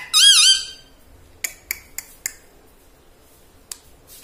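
Indian ringneck parrot giving a short, loud call that wavers up and down in pitch, followed by four sharp clicks about a third of a second apart and a single click near the end.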